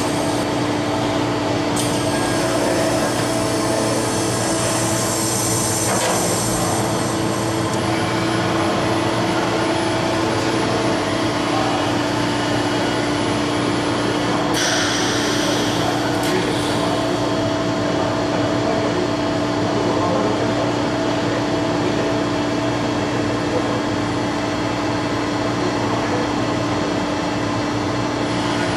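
Okuma MCR-B II double-column machining center running through an automatic head attachment change: a steady machine hum with several constant tones. Stretches of hissing come in from about two to seven seconds in and again briefly about fifteen seconds in.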